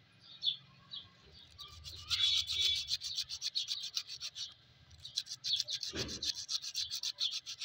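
Sandpaper scrubbing rust off the steel jaws of a pair of cutting pliers that are jammed with rust, in quick short strokes: one run, a brief pause, then a second run. A dull bump about six seconds in.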